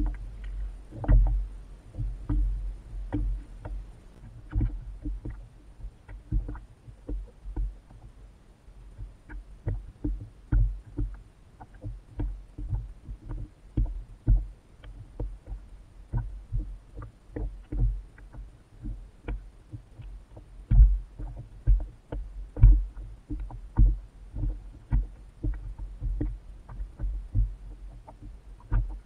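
Water slapping against a kayak's hull: an irregular run of low thumps and knocks, about one or two a second, with small sharp clicks among them.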